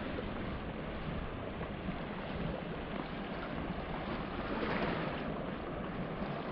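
Sea surf washing on the shore, with wind rushing over the microphone; a wave surges louder about four and a half seconds in.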